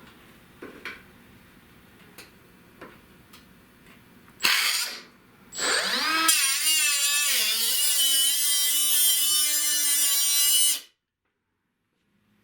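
Electric power tool cutting sheet steel: a short burst about four and a half seconds in, then from about six seconds a steady motor whine whose pitch dips as it loads up in the cut, stopping abruptly near the end. A few faint clicks of handling come before it.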